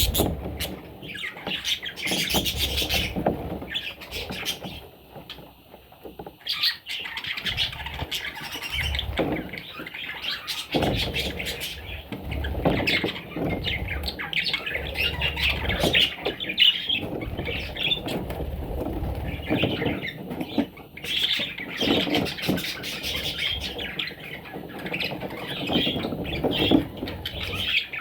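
Parrots chattering and squawking in a continuous, irregular stream of calls, briefly quieter about five seconds in.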